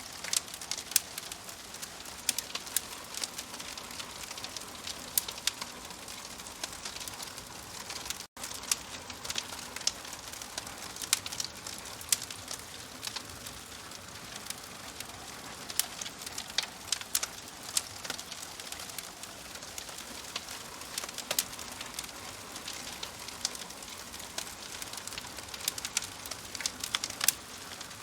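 Wood fire crackling in a fireplace: a steady hiss with frequent sharp, irregular pops. There is a split-second dropout in the sound about eight seconds in.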